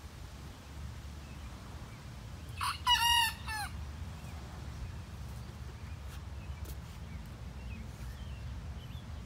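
A young rooster (cockerel) just beginning to crow gives one short crow of about a second, a few seconds in.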